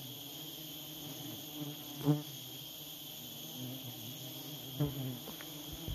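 Steady high-pitched drone of forest insects. A short falling call sounds about two seconds in and another near the end.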